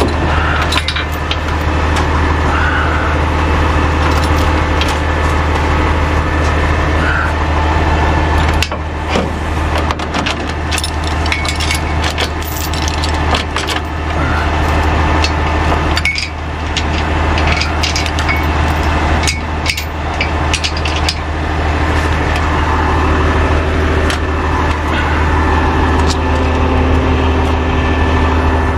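A tow truck's engine idling steadily, with scattered metal clinks and clanks, most of them in the middle stretch, as the tow chains and hooks are handled to hook up a vehicle.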